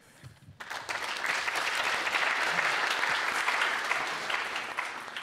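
Audience applauding, starting suddenly about half a second in and tapering off near the end.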